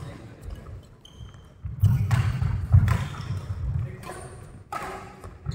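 Badminton rally: sharp racket-on-shuttlecock hits and footsteps thudding on the court mat, louder from about two to four seconds in, with a few brief high shoe squeaks.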